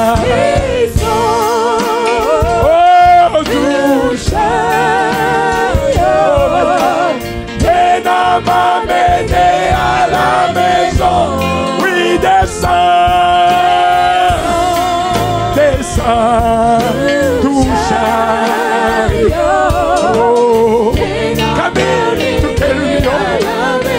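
A man singing a slow gospel song into a microphone, with wide vibrato and long held notes.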